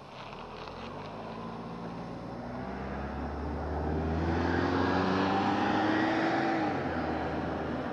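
A motor vehicle passing close by: its engine hum and tyre noise grow louder over several seconds, then the pitch drops as it goes past near the end.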